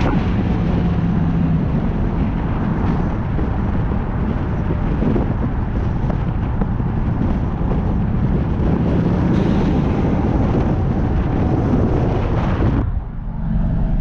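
A vehicle running, with heavy wind rushing over the microphone as a loud, dense rumble. The hiss cuts off suddenly near the end, leaving only the low rumble.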